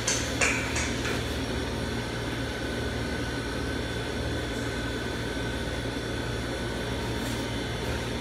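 Steady low mechanical hum of room tone, like a fan or air-conditioning unit running. In the first second come a few faint handling noises as a wet garment is shaken out and hung on a hanger.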